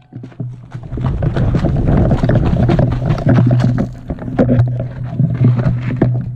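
Airsoft BBs striking a painted sheet-metal bunker wall: a rapid, irregular clatter of sharp ticks over a steady low hum.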